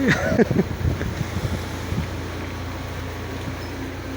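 Boat engine running steadily with a low hum, with wind on the microphone; a few brief voice sounds in the first half-second.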